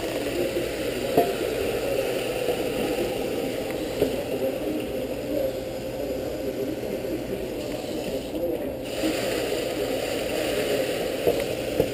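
Tap water running into a stainless steel bowl and being poured over the lid of a hot pressure cooker standing in a steel sink, cooling it after cooking. The running water is steady, with a few sharp knocks of metal on metal.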